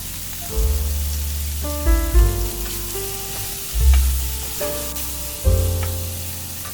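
Fried tofu and onion sizzling in a hot pan as they are stir-fried, under background music with a steady run of bass notes.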